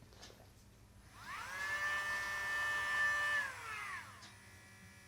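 Dremel Micro rotary nail grinder switched on, its motor spinning up in a rising whine, running steadily for about two seconds, then switched off and winding down with a falling pitch.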